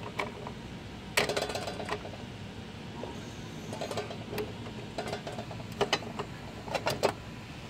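Metal clicks and knocks of an AC condenser's Siemens disconnect box being worked by hand, as the pull-out is handled to switch the unit's power back on and the hinged cover is shut. There is a cluster of sharp clacks about a second in and more knocks near the end, over a steady hum.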